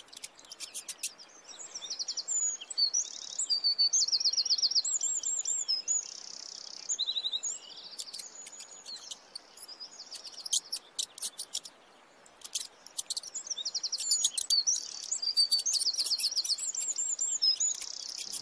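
Small birds chirping and trilling in high, fast-repeated notes, in two busy spells with a quieter gap around the middle, mixed with sharp ticking calls.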